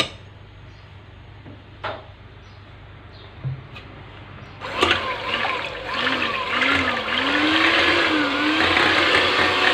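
A few sharp knocks in the first few seconds, then an electric hand mixer switched on about five seconds in, running steadily with a wavering whine as its beaters whisk eggs, milk, oil and vanilla essence in a bowl.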